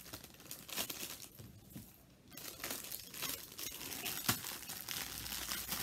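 Clear plastic bag crinkling and crackling irregularly as small tools are packed back into it, with a short lull before the middle and one sharper click a little past the middle.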